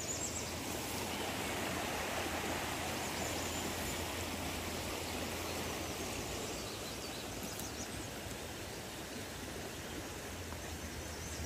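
Steady rush of running water from a stream.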